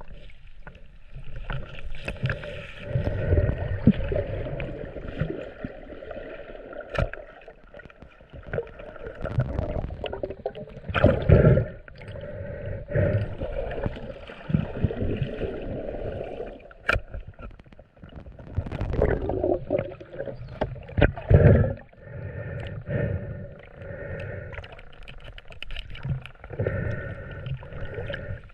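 Water sloshing and gurgling close to the microphone, with several louder surges.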